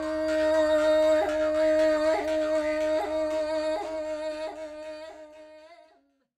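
Sakha khomus (jaw harp) playing a steady drone with shifting overtone melody above it, re-plucked about once a second. It fades out and stops near the end.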